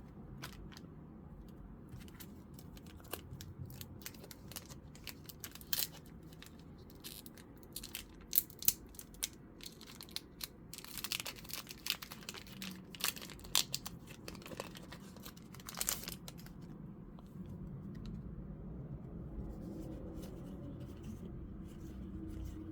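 A foil card booster pack crinkling and being torn open, with the cards handled. It makes a run of sharp crackles and clicks, thickest around the middle.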